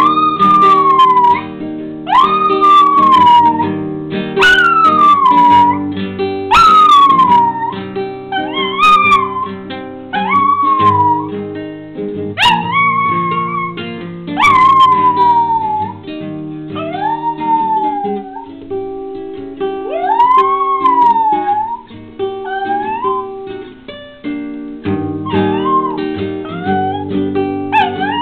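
Maltese puppy howling along to an acoustic guitar: a string of howls about every two seconds, most sliding down in pitch, with one longer rising-and-falling howl near the middle and shorter ones towards the end, over steady plucked guitar playing.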